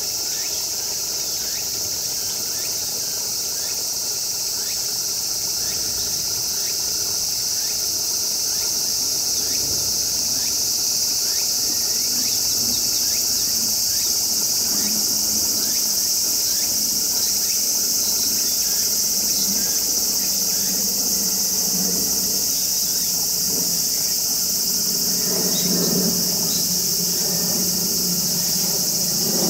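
Steady high-pitched insect chorus throughout. Small birds splash water in a bird bath near the end.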